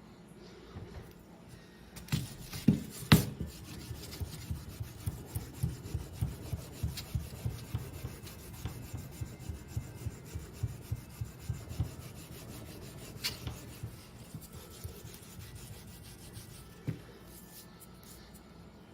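Klingspor Schleiffix abrasive rubber block scrubbed back and forth over metal to rub off rust, in quick even strokes about two a second that fade to lighter rubbing later. A few louder knocks come near the start and one near the end.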